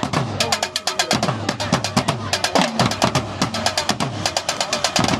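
Drums played in a fast, steady rhythm: quick sharp hits many times a second over deep bass-drum strokes.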